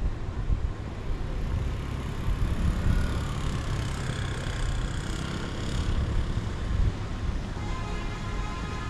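Street ambience of passing road traffic, with a strong low rumble throughout and faint higher tones coming and going.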